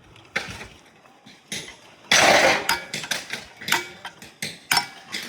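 Hammer and hand tools knocking on the metal parts of a heavy electric motor being taken apart: a string of sharp metal clanks with a short ring, and a louder clatter about two seconds in.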